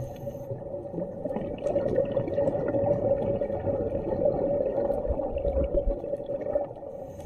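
Muffled underwater rushing of water picked up through a submerged camera, with scattered faint crackling clicks; it grows louder about a second and a half in and eases off near the end.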